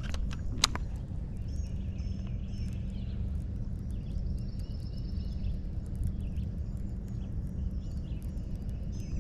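A steady low outdoor rumble with birds chirping and singing faintly above it, and one sharp click just after the start.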